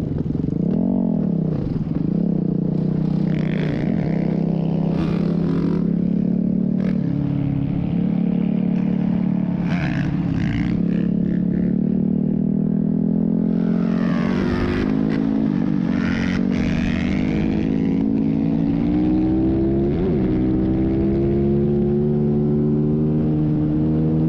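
Motorcycle engine running at road speed. The revs rise and fall briefly about a second in, then hold steady and climb slowly in the second half.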